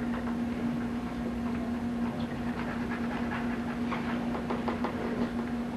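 Pencils scratching on paper in short, irregular strokes as players work a math problem, over a steady low electrical hum.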